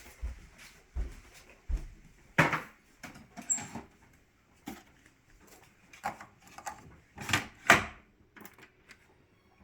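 A few low thumps like footsteps, then a string of separate knocks and clatters from objects being handled, such as cupboard doors and dishes. The loudest clacks come near the middle and again about three quarters of the way in.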